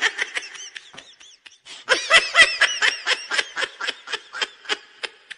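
High-pitched giggling laughter, a rapid string of short 'ha' pulses about five a second. It comes in a brief burst at the start, then a longer run after a short pause of about a second.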